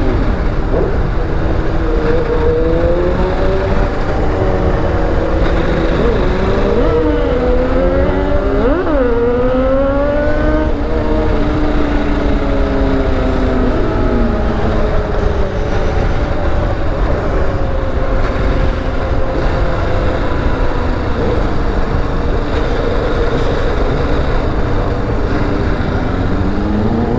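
Motorcycle engine heard while riding, revving up through several gears about a third of the way in, then cruising at a steady pitch and picking up again near the end, with heavy wind rumble on the microphone.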